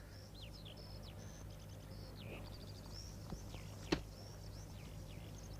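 Birds chirping and whistling with short trills over a low steady hum, and one sharp knock about four seconds in.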